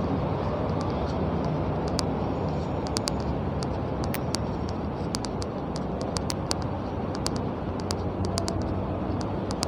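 Steady low rumble of distant road traffic, with scattered short sharp clicks through it.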